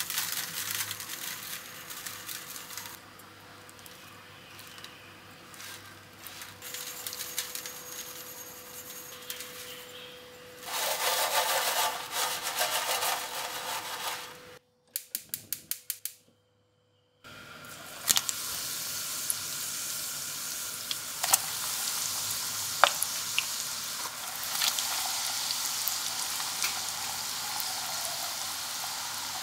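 Bread crumbs pattering onto a steel baking tray, then the tray shaken so the crumb-coated potato cheese sticks roll about in the crumbs. After a quick run of clicks and a moment of silence, the breaded sticks deep-fry in hot oil: a steady sizzle with scattered sharp pops for the last ten seconds or so.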